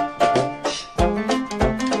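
Upbeat background music with a steady beat, which briefly drops out about half a second in before resuming.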